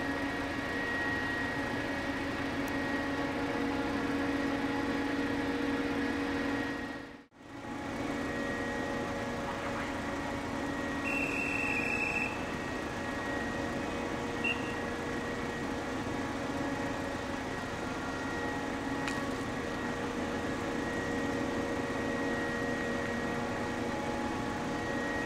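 Steady machinery hum with several held tones from a large Ro-Ro passenger ferry lying alongside. It drops out briefly about seven seconds in, and a short high beep sounds a little before halfway.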